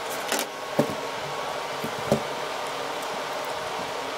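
Handling noise from small objects being moved on a desk: three light knocks and clicks, the loudest about two seconds in, over a steady background hiss.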